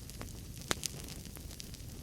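Wood fire burning in a fireplace: a low steady rumble of flames with scattered sharp crackles and pops of the logs, the loudest two close together a little before halfway.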